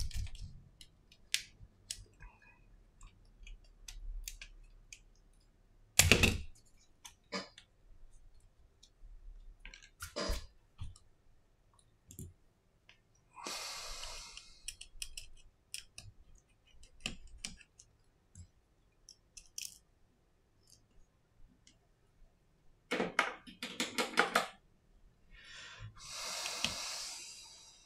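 Small clicks, taps and scrapes of an iPhone 6s being taken apart with hand tools: a plastic pick prying at the screen's edge, then a small tool working at the parts inside the phone. There is a sharper knock about six seconds in, a quick run of clicks near the end, and two short scraping rushes, one about halfway through and one near the end.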